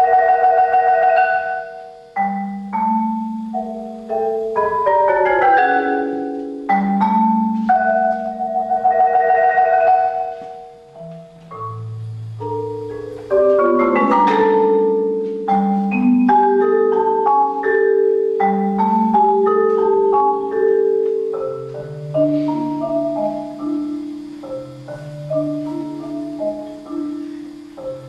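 Solo concert marimba played with mallets: long held notes and chords sustained by rolls over deep bass notes, with a sharp accented strike about halfway through.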